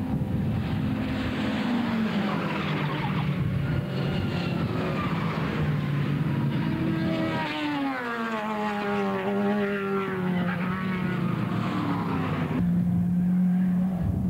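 Historic saloon and sports racing cars under power as they pass in a group, several engines overlapping, each engine note dropping in pitch as its car goes by.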